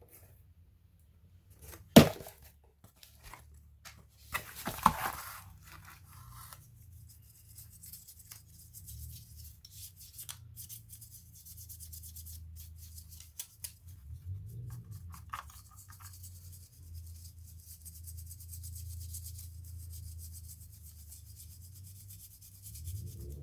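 Work on laptop parts by hand: one sharp click about two seconds in, then rubbing and scraping, with a few small clicks over a low steady hum.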